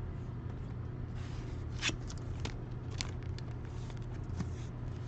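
Trading cards being handled and slid against one another, with a few light clicks, over a steady low hum.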